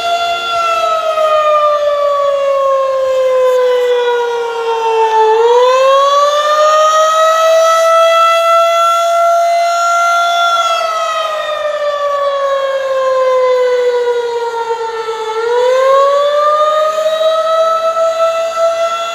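Federal Signal 2001-SRN/DC outdoor warning siren sounding the Attack signal: a loud wail whose pitch slides slowly down for about five seconds, sweeps back up, holds briefly, then falls again, repeating about every ten seconds.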